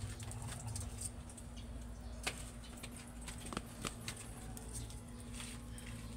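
Firewood burning in an open hearth and a clay stove, crackling with scattered, irregular sharp pops over a low steady rumble.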